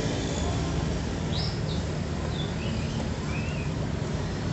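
A few short bird chirps over a steady low rumble of background motor noise.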